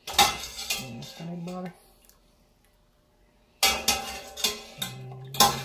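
Kitchenware clattering: a bowl, pot and utensil knocking and scraping together, in two spells with a quiet gap between.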